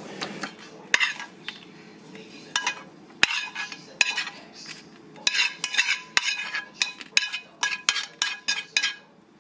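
Metal utensil clinking against dishware in the kitchen. A few separate clinks come first, then from about halfway in a quick, rhythmic run of clinks, as in stirring.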